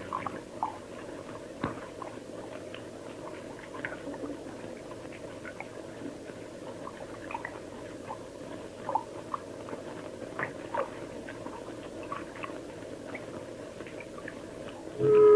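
Quiet background hiss with scattered small ticks and clicks. Near the end, music comes in with a loud held wind-instrument note.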